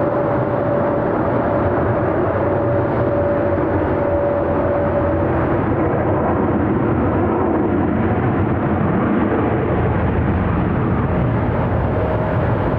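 Jet engines of a Delta Airbus A330-900neo (Rolls-Royce Trent 7000) landing: steady, loud jet noise with a high whine that fades out about five seconds in.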